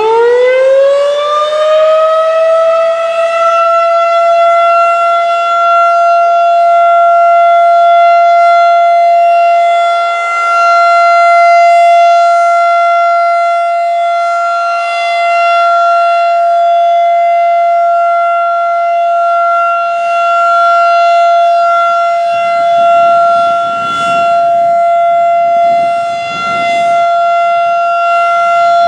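Federal Signal 2001-DC rotating outdoor warning siren sounding its steady Alert tone during a test: it finishes winding up in the first couple of seconds, then holds one steady high pitch, its loudness swelling and dipping a little as the head turns. A lower rushing noise joins in over the last several seconds.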